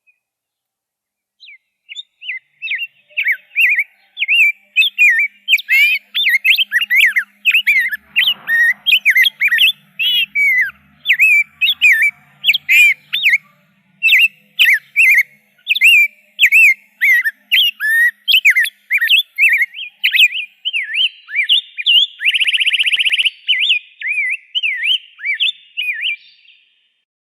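Rose-breasted grosbeak singing a long, fast warbling run of whistled notes, with a brief harsh buzz near the end.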